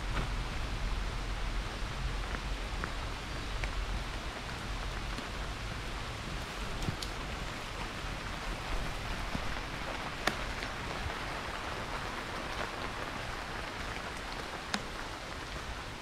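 Steady rain falling on leaves and the path, an even hiss, with a few sharp ticks of drops landing close by.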